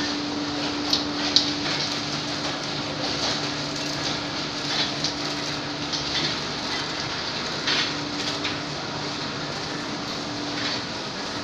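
Cement bag-packing machinery and a belt conveyor running: a steady industrial din with a constant hum, broken by scattered sharp clacks and knocks, the loudest a little over a second in.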